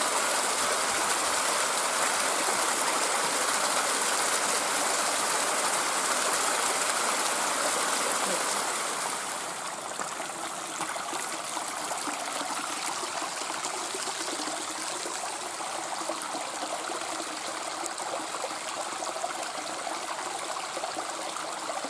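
Rushing water of a waterfall and its stream, a steady wash of noise that drops in level about nine seconds in.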